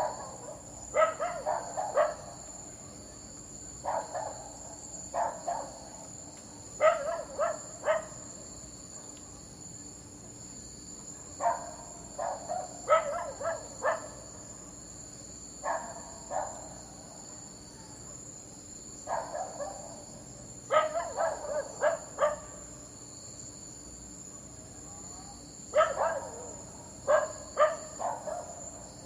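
A dog barking in short runs of two to four barks every few seconds, over a steady high chorus of insects such as crickets.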